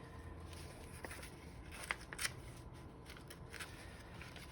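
Faint rustling of paper as decorated notebook pages are handled and turned, with a few short crinkles.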